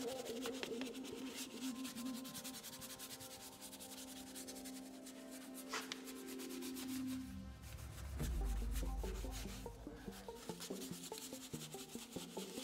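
Stiff detailing brush scrubbing foamy cleaner into a Mustang GT's textured plastic door sill trim: fast, scratchy bristle-on-plastic rubbing. Soft background music plays underneath, with a deep low swell about two-thirds of the way in.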